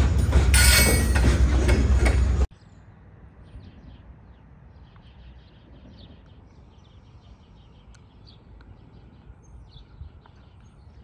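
Freight train of covered hoppers and boxcars rolling past close by, a loud steady noise of wheels on rail that cuts off abruptly about two and a half seconds in. After that come faint bird chirps over a quiet background.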